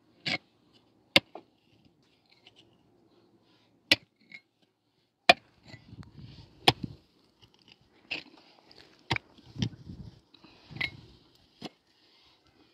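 Short-handled hand pick striking stony soil and rock: about ten sharp, irregular blows, with loose earth and stones scraping and rattling between the blows from about halfway on.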